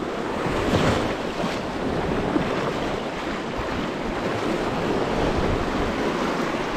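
Sea waves and moving water washing over shoreline rocks, a steady rush with a slight swell about a second in, with wind on the microphone.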